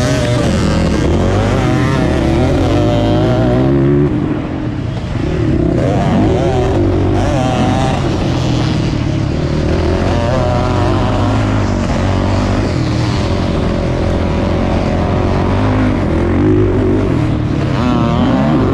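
Racing ATV engine heard close from on board at full race pace, its pitch rising and falling again and again as the throttle is opened and closed and gears change through the turns, with a brief drop about four seconds in.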